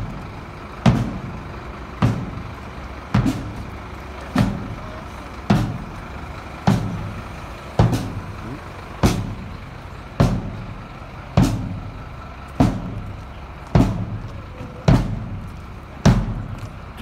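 Marching band's bass drum beating a steady marching pace, one stroke a little less than once a second… more exactly about every second and a bit, each boom dying away before the next.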